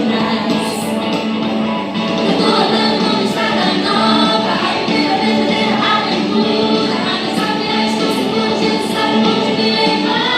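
Christian worship song playing, with sung vocals over a steady backing band.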